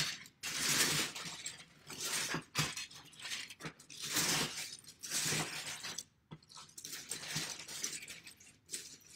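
Loose plastic Lego bricks clattering and rattling as a hand rummages and digs through a bin of them, in uneven surges of several seconds with short pauses between.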